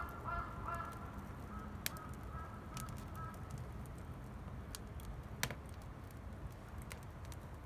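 Wood bonfire crackling, with scattered sharp pops over a low background rumble. A bird calls repeatedly in the first second or so, growing fainter over the next couple of seconds.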